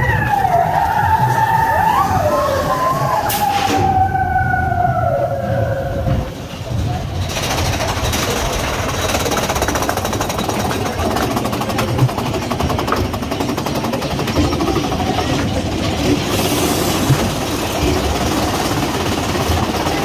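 Big Thunder Mountain Railroad roller-coaster mine train rumbling and rattling along its track. Riders give wavering, falling yells in the first few seconds. The rattle grows denser after about seven seconds.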